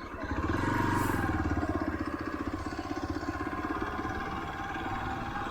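Motorcycle engine running close by with a fast, even pulse. It grows louder about half a second in, then holds steady, easing slightly toward the end.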